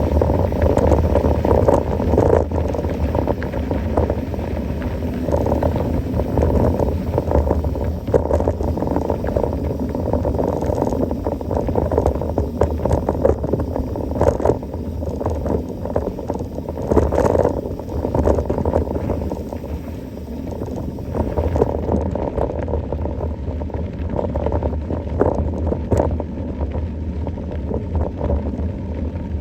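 Mountain bike ridden slowly uphill on a trail: a steady low rumble of ride noise with scattered clicks and knocks from the bike.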